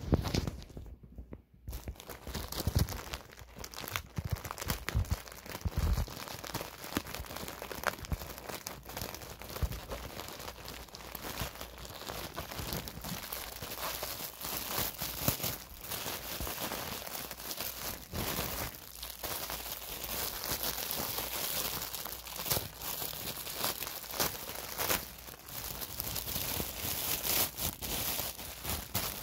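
Plastic mailer bag crinkling and rustling as it is handled and torn open, with many sharp crackles.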